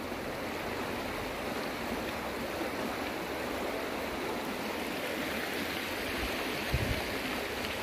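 Shallow mountain river rushing steadily over rocks and stones, with a brief low bump about seven seconds in.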